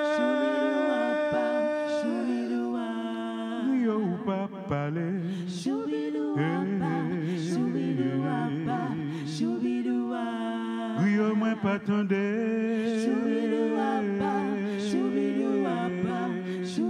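Voices singing a slow Haitian Creole song with little or no instrumental backing and no steady beat. Long held notes waver with vibrato, and the pitch moves between phrases.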